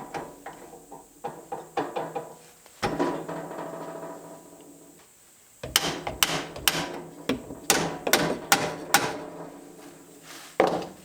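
Metal-on-metal hammer blows on a drill press chuck, seating its Morse taper in the spindle. There are several taps at first, then one blow about three seconds in that rings on for a second or two. A quicker run of about eight blows follows from about six to nine seconds in, with one more near the end.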